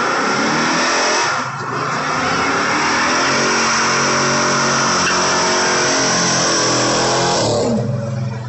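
Car doing a burnout: the engine is held at high revs while the spinning tires squeal, with a brief dip about a second and a half in. The revs fall away near the end.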